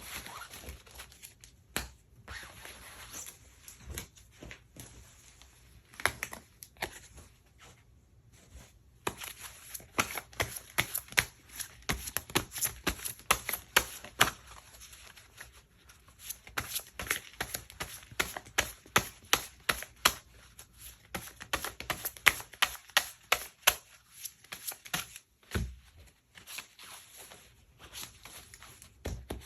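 Tarot cards being handled and shuffled on a table: a long run of quick, crisp clicks and slaps, sparse at first and densest in the middle, with short pauses.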